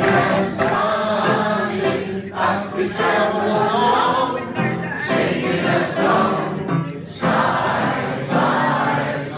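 Amateur choir of very elderly voices singing a song together from song sheets, the phrases broken by brief breaths.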